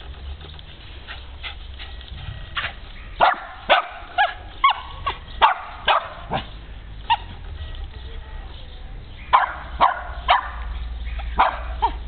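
Small dog barking in short, sharp yaps: a quick run of about ten, a pause of about two seconds, then about five more.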